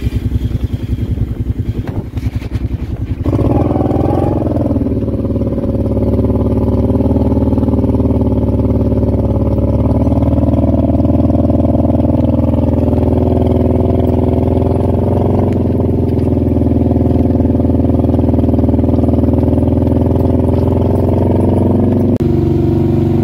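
ATV engine pulling a two-row planter: it revs up about three seconds in, runs at a steady higher speed under load, and drops back near the end.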